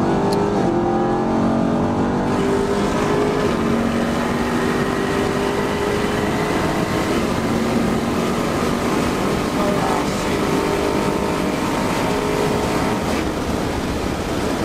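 Car engine and road noise heard from inside a Chevrolet Camaro's cabin. The engine climbs in pitch over the first couple of seconds as the car accelerates, then holds steady at highway cruise.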